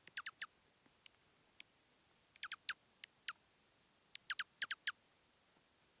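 Dark-eyed juncos giving short, sharp call notes that slide steeply down in pitch. They come in quick clusters: three right at the start, about five some two and a half seconds in, and a faster run of about six near the end.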